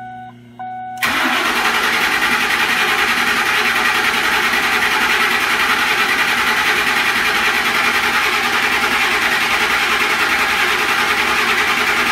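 Ford 5.4L three-valve V8 being cranked over by its starter without firing, a loud steady churn with a faint even pulse. The crankshaft sensor is unplugged, so the engine only turns over to prime the newly fitted oil pump. About a second in, just before the cranking starts, an electronic chime beeps twice.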